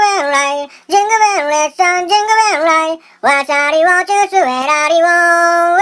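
A high-pitched singing voice holding drawn-out notes that step and slide down in pitch, phrases broken by short pauses about once a second.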